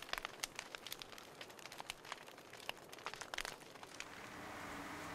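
Faint, irregular crackling like a log fire burning, which stops about four seconds in and gives way to the steady low hum of a quiet room.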